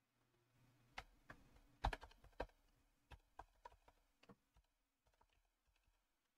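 Typing on a computer keyboard: a quick run of key presses about a second in, then sparser, fainter keystrokes that die away after about four and a half seconds.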